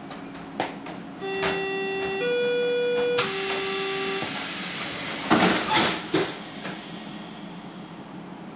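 Berlin U-Bahn HK train's door-closing warning: three chime tones, low, high, low, each about a second long. Then the doors slide shut with a loud rushing hiss and a few knocks as they close, and the hiss fades.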